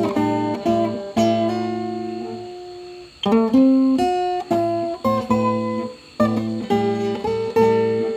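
Background music on acoustic guitar: strummed and plucked chords, each struck sharply and left to ring, with a couple of short pauses.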